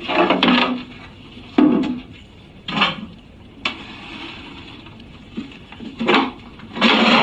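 Rear casing of a television being lifted off and put down: a series of knocks, scrapes and clatters about a second apart, the loudest and longest near the end.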